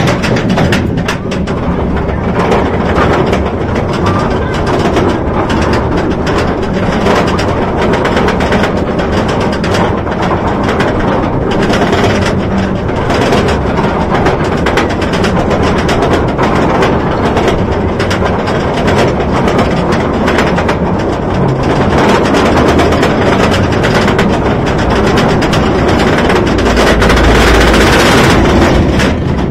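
Roller coaster train climbing its lift hill: a loud, continuous mechanical clatter and rattle from the lift and the train, with a louder low rumble near the end as it reaches the top.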